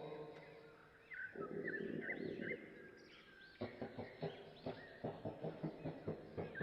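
Homemade Tyrannosaurus rex call built from layered chicken and ostrich sounds: a low growling rumble with bird chirps over it, followed by a run of short, quick knocks about three a second.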